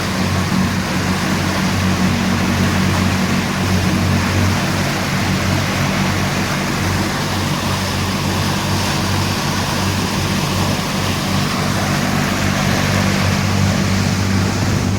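Double-decker passenger ferry's engine running at a steady cruising hum, with an even rush of water and wind noise over it.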